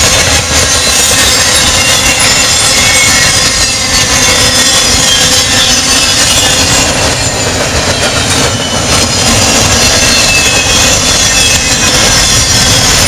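Intermodal freight train rolling past close by: a loud, steady rumble and rattle of car wheels on the rails, with faint high-pitched wheel squeal drifting over it.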